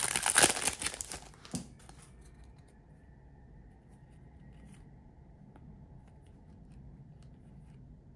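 A trading-card pack's wrapper being torn open and crinkled, loud for about the first second and a half, then only faint scattered ticks.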